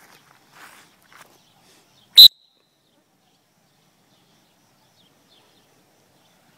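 A single short, very loud whistle blast with a sharp tone, about two seconds in, typical of a dog-training stop whistle given to Weimaraners being taught to halt on command. Faint steps in grass come before it.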